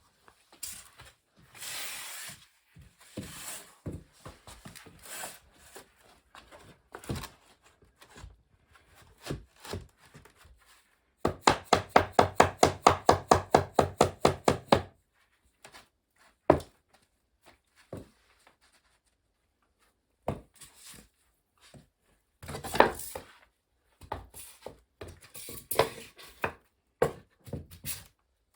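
Wooden subfloor tiles being handled and knocked into place: scattered knocks and scraping, then about halfway through a quick run of some twenty sharp strikes at about six a second, with more knocks near the end.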